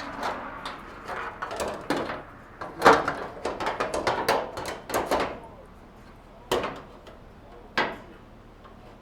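Dryer parts being handled and fitted back together: a run of clunks and rattles over the first five seconds, the loudest about three seconds in, then two single knocks near the end.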